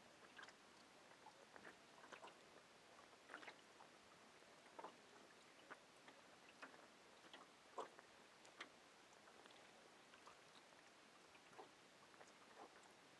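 Near silence with faint, irregular small clicks and ticks over a low hiss.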